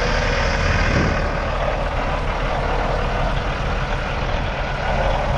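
Diesel engine of a Peterbilt 389 semi truck idling steadily.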